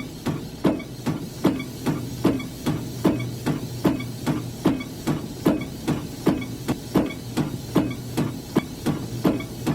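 Squeaky windshield wiper blades on the fast setting, sweeping back and forth across wet glass about two and a half strokes a second in an even rhythm. Steady rain hiss and a low hum run underneath.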